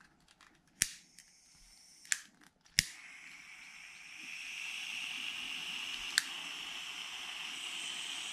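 Butane soldering iron being lit: three sharp clicks of its igniter, the third catching, then a steady hiss of burning butane that grows louder about four seconds in. One more sharp click near six seconds.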